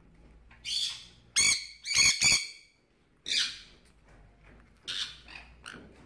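Conures giving a string of short, shrill squawks: three loud ones close together about one and a half to two and a half seconds in, with quieter calls before and after.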